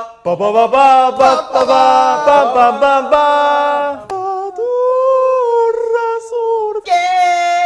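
Voices singing and yelling in high, drawn-out notes, several at once at first. About four seconds in, one voice holds a long high note with a slight wobble, and other voices come back in near the end.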